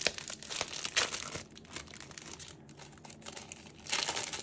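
Thin plastic packaging crinkling and crackling as it is pulled open by hand. There is a quieter stretch in the middle, and denser, louder rustling comes near the end.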